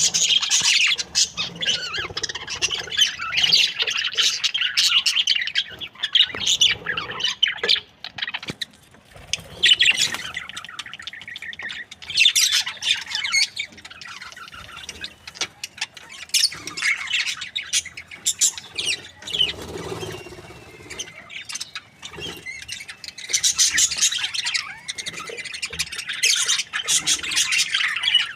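Budgerigars chattering and chirping in rapid, busy bursts of high-pitched squawks and tweets, with a couple of brief lulls.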